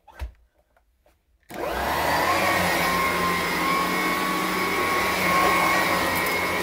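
A 1987–88 Electrolux Discovery 3 upright vacuum cleaner is switched on about a second and a half in, after a short knock. Its motor spins up with a rising whine and then runs steadily with a loud rushing hum.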